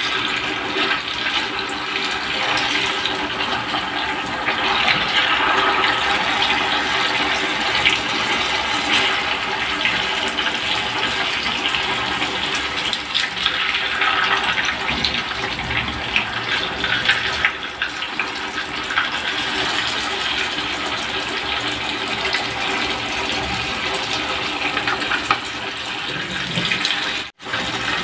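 Tofu slices deep-frying in hot oil in an electric nonstick pan: a steady sizzle with small crackles, cutting out for an instant near the end.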